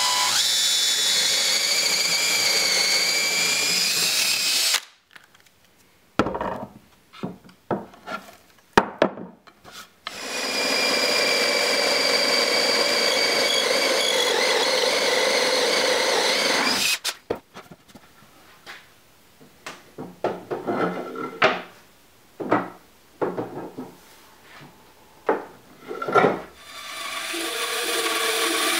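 Cordless drill with a Forstner bit boring through a wooden board: two spells of steady motor whine, about five and seven seconds long, with scattered knocks and clicks between them. Near the end a bandsaw starts up and runs.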